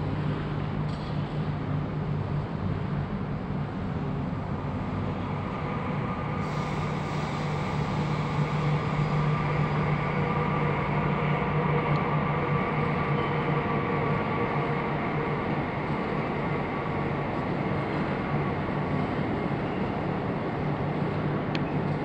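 A steady low mechanical hum over a constant rushing noise, with one strong unchanging low tone and fainter steady tones above it. The level holds even throughout.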